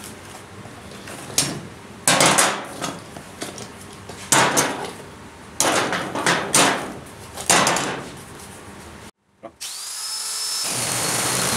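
A cardboard box being torn open and bar clamps pulled out of it: about six sharp rips and rustles of cardboard, with knocks of the clamps. Near the end, after a short gap, a handheld electric sheet-metal cutter starts up and runs with a steady high whine.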